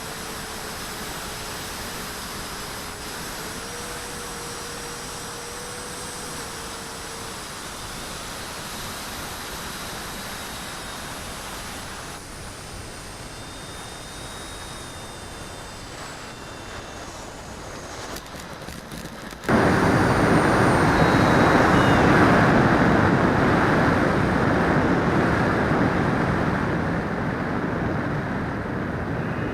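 Radio-controlled L-39 Albatros model jet in flight: a steady rushing noise with faint high whines. About two-thirds of the way through, it jumps suddenly much louder, then slowly fades.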